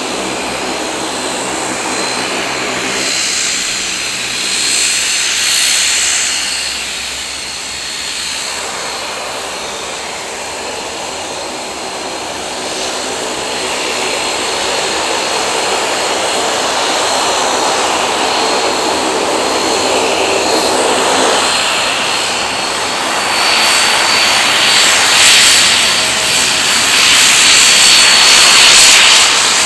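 De Havilland Canada Dash 8-400 turboprop taxiing, its two Pratt & Whitney PW150A engines running with a steady propeller hum and a thin high whine. It gets louder over the second half as the aircraft passes close.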